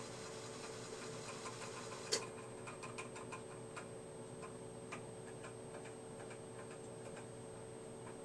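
Computer keyboard keys clicking as the cursor is stepped through text in a screen editor: one sharp click about two seconds in, then a quick run of lighter clicks that thins out to occasional single ones, over a steady background hum with a faint high whine.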